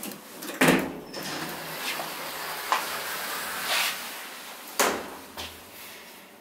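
Elevator car's automatic sliding doors closing after the up button is pressed: a steady sliding hiss with several knocks, the loudest a clunk about five seconds in as the doors meet.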